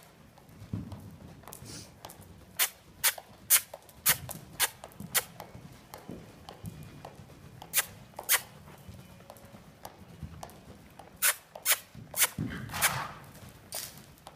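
Saddled young horse moving loose around a dirt arena: soft hoofbeats under about a dozen sharp clicks in bunches of two or three, with a short breathy rush near the end.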